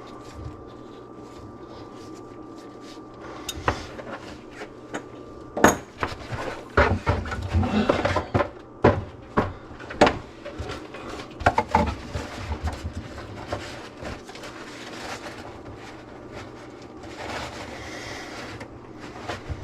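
Irregular clatter and sharp knocks of hard objects being handled under a kitchen sink cabinet, such as tools and drain parts. The knocks bunch up in the middle and then thin out to a low background.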